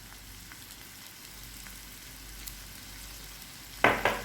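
Chopped onion, capsicum, carrot and spring onion sizzling steadily in hot oil in a pan as they are sautéed, a soft frying hiss with faint crackles. A brief louder noise comes near the end.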